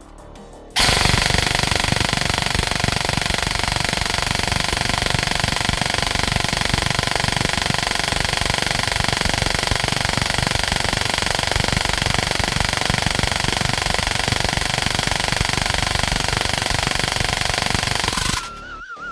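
Airsoft P90 AEG gearbox driven by a 35k brushless motor on an 11.1 V LiPo, cycling on continuous full auto: a fast, even mechanical rattle with a steady motor-and-gear whine. It starts suddenly about a second in and stops suddenly near the end.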